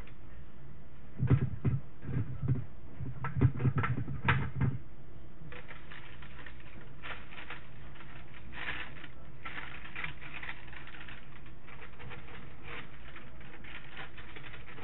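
A quick run of knocks and taps of a plastic dehydrator tray against a bowl as dried thyme is shaken off, then paper crinkling and rustling as the sheet that held the herbs is handled and rolled up.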